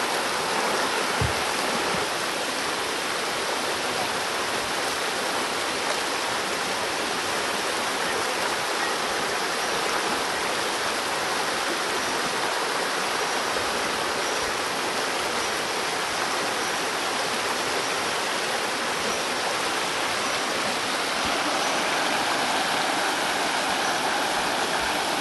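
Shallow, rocky river rushing steadily over stones and small rapids.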